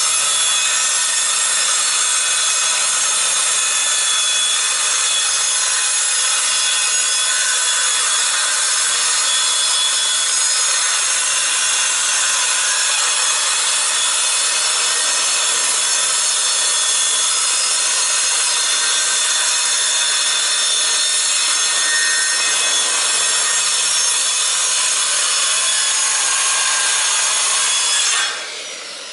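Circular saw cutting a long, straight cut through a sheet of plywood, running steadily and loud. Near the end the trigger is released and the blade spins down with a falling whine.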